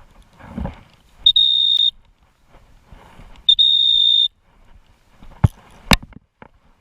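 Two steady, high-pitched blasts on a dog-training whistle, calling the pointer pup in: the first about a second in, the second a little longer, about three and a half seconds in. Two sharp clicks come near the end.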